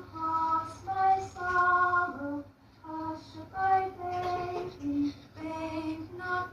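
A high voice singing a slow, simple lullaby-like tune in long held notes, in phrases broken by a short pause about two and a half seconds in.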